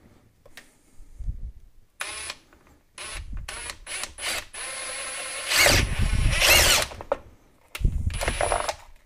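Cordless drill driving a step drill bit through a hard plastic ammo-box lid to cut a 3/4-inch hole. It runs in several short bursts starting about two seconds in, then a longer, louder cut in the middle, and one last short burst near the end.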